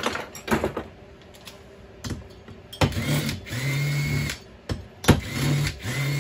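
Cordless impact driver with an Allen bit run in two bursts, the first about three seconds in and the second about five seconds in, undoing the cylinder screws of a Jonsered 2165 chainsaw. A few light knocks of the tool being set on the screws come before.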